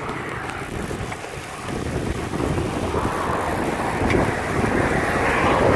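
Wind buffeting the microphone of a camera on a moving bicycle: a steady rushing noise that dips briefly and then grows louder about two seconds in.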